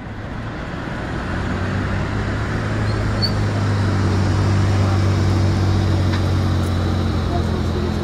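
A vehicle engine running steadily at idle, fading in over the first few seconds.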